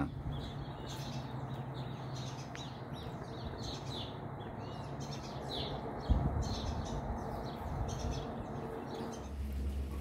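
Many small birds chirping at a seed feeder, quick overlapping chirps over steady background noise, with a sudden thump about six seconds in. Near the end the chirping fades and a low hum remains.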